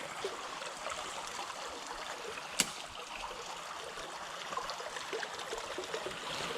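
Small creek's water running and trickling steadily over its bed, with one sharp click about two and a half seconds in.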